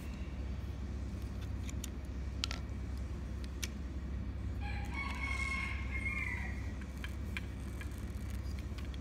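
A rooster crowing once, one long call of about a second and a half starting about halfway through. A steady low rumble runs underneath, with a few faint clicks scattered through.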